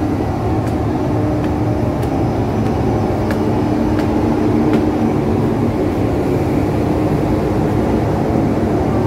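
Ship's engines running on a moored car ferry: a loud, steady drone with a low hum in it. Faint short taps come over it about every two-thirds of a second.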